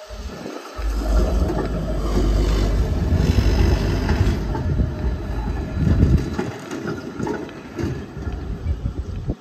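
Low-floor articulated tram rolling past on street track: a steady rumble with wheels clattering over rail joints and points, and a faint high wheel squeal about three seconds in. It fades away over the last few seconds as the tram moves off.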